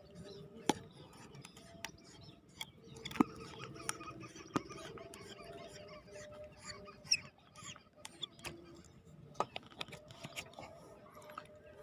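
Faint ambience heard underwater: scattered sharp clicks and crackles, irregular, over a low steady hum.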